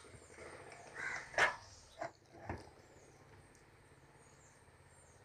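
A few light knocks and clinks of a metal spoon against an aluminium pressure cooker pot as the opened pot of beef is stirred, the loudest about a second and a half in.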